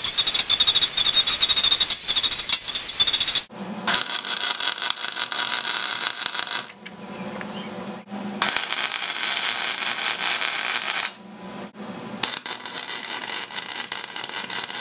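An angle grinder grinding the end of a steel frame tube, a steady high whine and hiss that stops sharply about three and a half seconds in. Then a wire-feed welder welding the clamped tube joint in three runs of a few seconds each: a steady crackle with a low buzz, with short pauses between runs.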